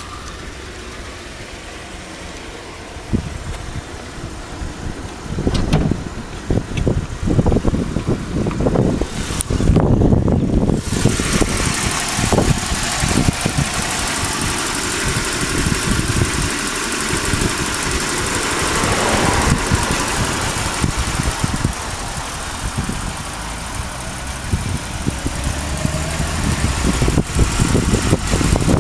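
Toyota Lexcen (VN Commodore) car engine running, a steady low rumble with irregular knocks and bumps.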